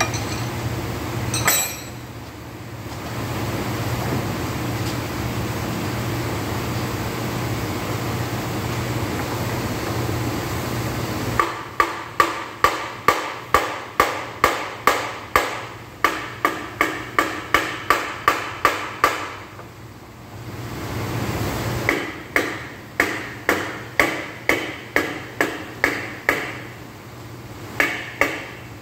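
Hammer blows on the end bell of a three-phase electric motor, knocking it loose to take the motor apart: sharp metallic strikes with a ringing tail, about two to three a second, in two long runs after roughly ten seconds of steady hum, with a couple more strikes near the end.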